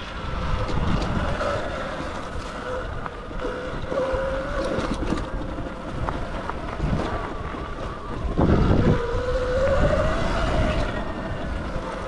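Sur-Ron Light Bee X electric dirt bike riding along a trail: the motor's whine wavers in pitch with the throttle and climbs again near the end, over rumbling wind on the microphone and tyre noise. The rumble swells loudest about eight and a half seconds in.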